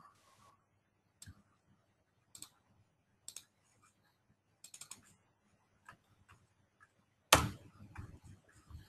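Computer mouse clicks and keyboard keystrokes, singly and in small clusters, with one louder knock about seven seconds in.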